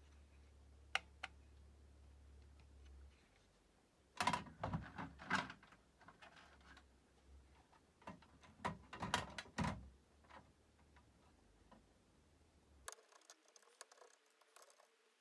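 Hands handling small plastic and glass parts of a removed projector LCD panel assembly: two sharp clicks, then two bursts of quick clicking, tapping and clatter a few seconds apart.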